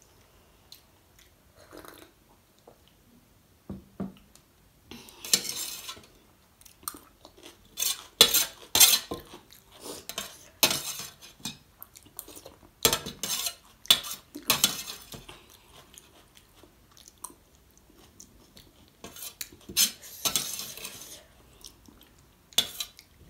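Steel spoon scraping and clinking on a steel plate while scooping up chole gravy, in irregular strokes with short pauses between.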